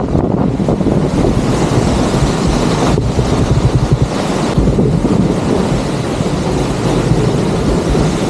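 Waterfall pouring into its plunge pool: a loud, steady, low rushing, with wind buffeting the microphone.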